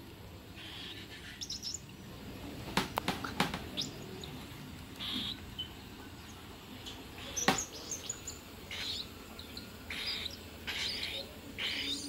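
Baby cockatiel making short, raspy food-begging calls over and over while being hand-fed formula from a syringe, with a few sharp clicks about 3 seconds in and again midway.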